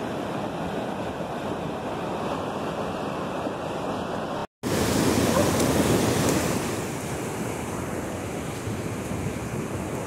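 Steady rushing noise of a muddy flash-flood torrent. The sound cuts out for an instant about four and a half seconds in and returns a little louder for a couple of seconds.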